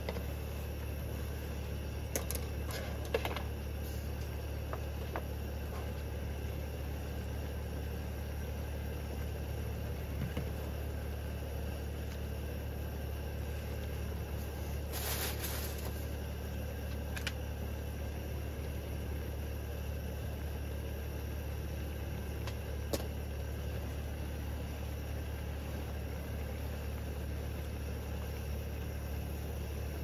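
A steady low drone with a few light clinks of chopsticks and dishes, and a short hiss about fifteen seconds in.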